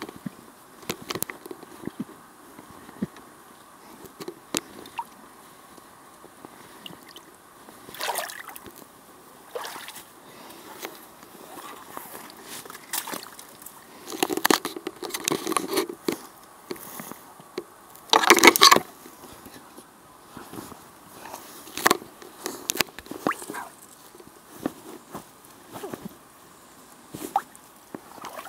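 Footsteps in rubber boots wading through shallow water and mud, splashing and sloshing at an uneven pace. The loudest splashing comes about two-thirds of the way through.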